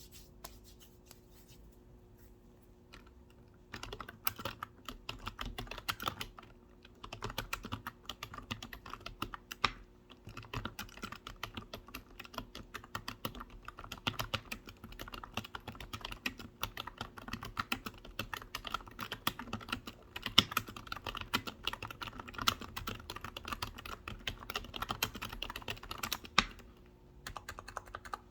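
Computer keyboard being typed on in fast, continuous runs of key clicks. The typing starts about four seconds in after a quiet stretch and pauses briefly a few times.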